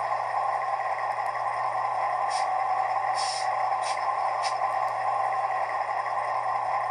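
Model locomotive sound decoder playing a V160 (BR 216) diesel engine sound through its small speaker, running steadily at idle while the model stands still. Four short hisses come in the middle of it.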